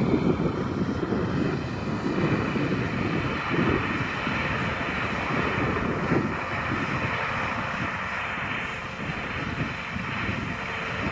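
Wind buffeting the microphone in gusts, over the steady running of distant farm machinery: a tractor with a grain trailer, then a Claas combine harvester driving across the stubble.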